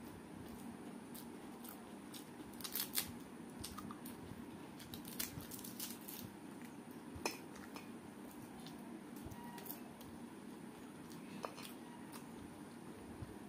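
Scattered crisp crackles of fried papad being broken up by hand in a plate of rice, with a short cluster of louder crunches about three seconds in and single snaps later.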